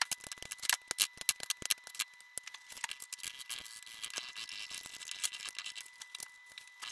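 Eggs being cracked on the rim of a ceramic bowl, then beaten with a fork: sharp irregular clicks at first, turning into quicker, lighter ticking of the fork against the bowl, which thins out near the end.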